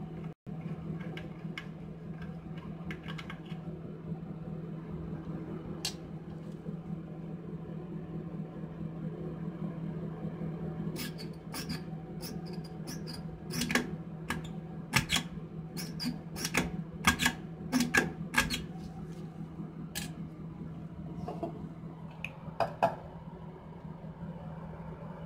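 Sharp metal clicks and taps from a pop-up sink drain stopper as a gloved finger presses and works its spring mechanism, a dozen or so in a burst over several seconds starting about halfway through, over a steady low hum. The stopper is stuck and will not pop up.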